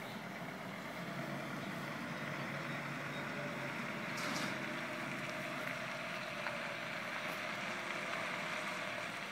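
Garbage truck's diesel engine running as the truck drives slowly up the street, a steady low hum with an even level, and a brief hiss about four seconds in.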